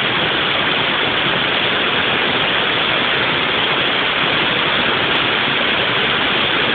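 Waterfall pouring, a loud, steady rush of water.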